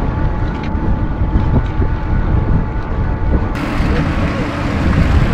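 Wind buffeting the microphone and rolling rumble from a cargo e-bike riding along a paved path, with a faint steady whine over the first few seconds.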